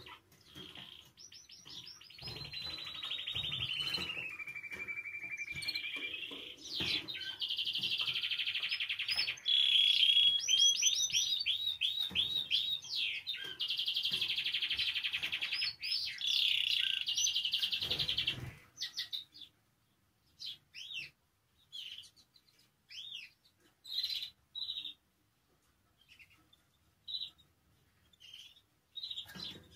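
Spanish timbrado canary singing a long unbroken song of rapid trills and rolls, with a steady held note about four seconds in. After about eighteen seconds the song breaks off into short, scattered chirps with pauses between them.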